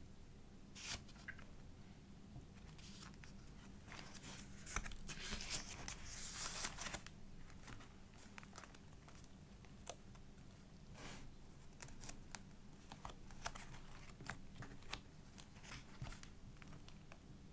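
Pages of a thick collaged paper journal being turned and handled: paper rustling and crinkling with small scattered ticks and clicks, and a louder stretch of rustling about four to seven seconds in.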